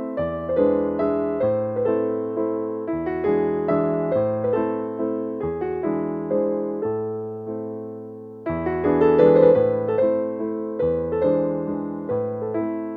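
Background piano music: gentle notes played at a steady pace. The music grows louder again a little past the middle.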